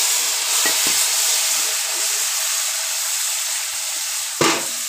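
Vegetables sizzling and steaming in hot oil in an iron karai just after turmeric-and-chili spice mixed with water is poured in: a steady hiss that slowly eases. A single sharp knock near the end.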